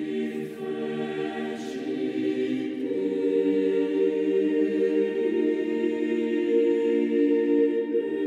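Slow sacred choral music, voices holding long sustained chords, with the chord changing about three seconds in.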